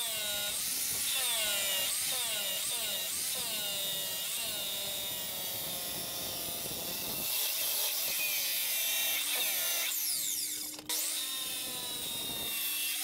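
Power miter saw cutting through stainless steel exhaust pipe. The motor's pitch sags and recovers again and again as the blade bites into the metal, then steadies; about eleven seconds in it cuts out for an instant and spins back up.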